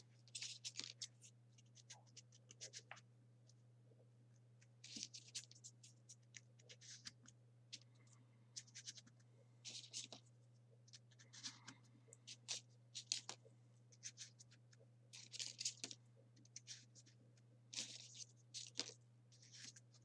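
Faint crackling and scraping of folded printer-paper origami units being picked up and pushed into place on a 3D origami model, in short scattered clusters, over a steady low hum.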